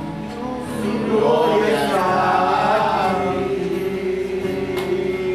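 A group of voices singing a worship song to acoustic guitar, the singing swelling louder about a second in.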